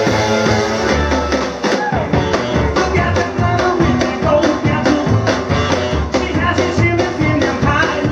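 Live rock and roll band playing: saxophone, upright bass and an early-1950s Gretsch three-ply drum kit. Held notes open the passage, and a steady driving drum beat takes over about two seconds in.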